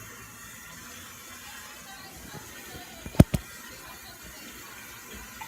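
Steady rushing noise, like water running, with two sharp knocks in quick succession about three seconds in.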